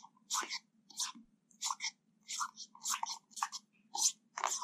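Manual coffee grinder being cranked by hand, the beans crunching in short, even bursts about twice a second.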